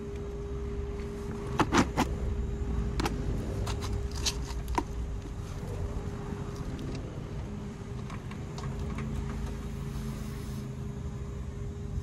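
Panasonic inverter split-system outdoor unit running with a steady hum and low drone: the compressor is running with no R410A refrigerant in it, pulling the low side into a vacuum. Over it, brass manifold-gauge fittings and hoses click and knock several times in the first five seconds as they are handled and connected.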